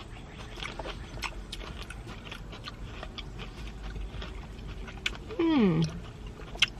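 Crunching and chewing on candied grapes with a hard candy coating: scattered short crackles of the shell breaking. About five seconds in, a person gives a falling "mmm" of approval.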